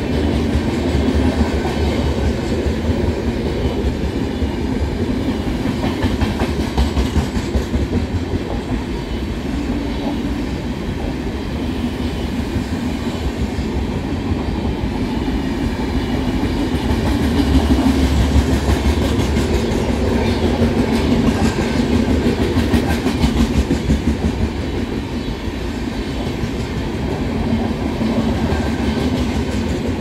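Indian Railways express passenger coaches rolling past on the track: a steady rumble of wheels on rail with repeated clicks as the wheels cross the rail joints, a little louder around the middle.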